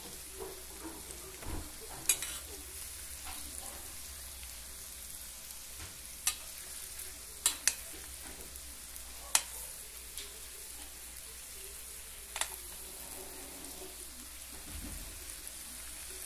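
Skin-on potato halves sizzling in melted butter in a stainless steel frying pan, a steady gentle hiss. A metal spoon clicks sharply against the pan about six times as the potatoes are set in place.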